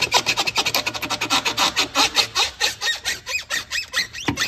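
A ratchet wrench clicking rapidly and evenly, about eight to ten clicks a second with a few squeaks, as a fastener is worked loose in the engine bay. The clicking stops near the end.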